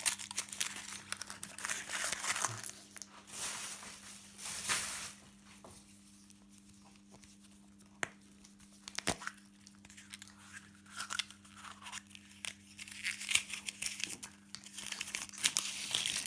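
Foil wrapper of a Kinder Surprise chocolate egg being torn and crinkled by hand, in bursts, then a quieter stretch with a couple of sharp clicks, and more crinkling near the end. A faint steady hum underneath.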